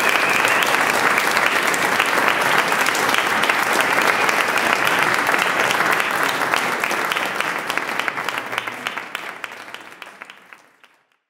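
Audience applauding, a dense crowd of hand claps that thins out over the last few seconds and stops near the end.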